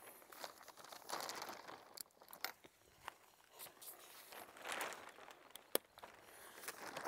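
Nylon tent fabric of a Stone Glacier SkyDome 6P rustling and crinkling as plastic clips are snapped onto its pole, with a few sharp clicks, the loudest near the end.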